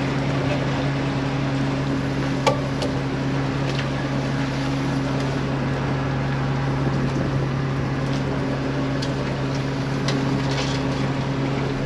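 Fishing boat's engine running with a steady hum while a net is hauled aboard, with a sharp knock about two and a half seconds in and a few light clicks near the end.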